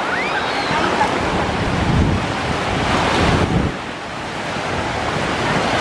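Small surf waves washing up onto the sand, with wind buffeting the microphone. The wash swells for a couple of seconds in the middle, then eases off.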